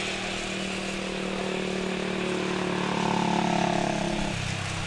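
An engine running with a steady hum whose pitch falls suddenly to a lower note about four seconds in.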